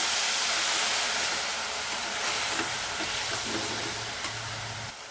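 Chopped fenugreek leaves sizzling in hot oil in a stainless steel kadhai as they are stirred with a steel ladle. The sizzle slowly dies down, as the water from the freshly washed leaves cooks off.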